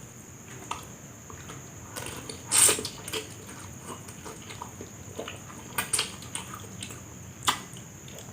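Close-miked eating noises: a person chewing and biting a mouthful of fried noodles, with scattered wet mouth clicks and a louder noisy burst about two and a half seconds in.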